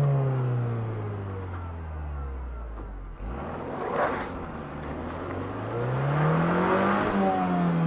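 Dacia Duster 4x4's engine under load, revs dropping away at the start, then after a brief break about three seconds in, climbing over a couple of seconds and easing off again near the end.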